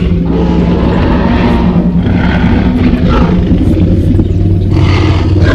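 Dinosaur growl sound effect: a loud, continuous low rumble with a steady deep drone underneath.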